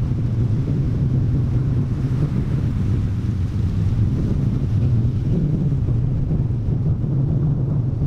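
Strong wind buffeting the microphone: a steady low rumble that never lets up.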